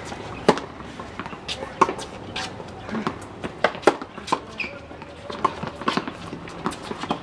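Tennis balls being struck by rackets and bouncing on a hard court: a string of sharp pops at uneven intervals, the loudest about half a second in, just after the near player's serve toss, with fainter hits from the other courts.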